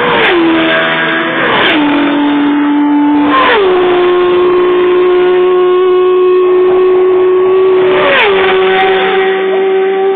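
Racing motorcycles passing at full speed one after another, four of them. Each engine note drops sharply in pitch as the bike goes by, then holds steady as it pulls away.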